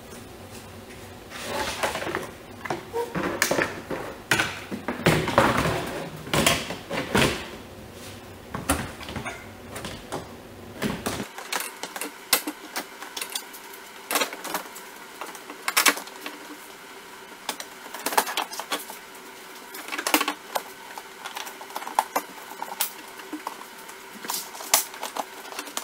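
A new plastic windshield cowl for a VW Golf mk4 being pressed and worked into place along the base of the windshield: repeated sharp clicks, taps and rattles of hard plastic, busiest in the first half and sparser after.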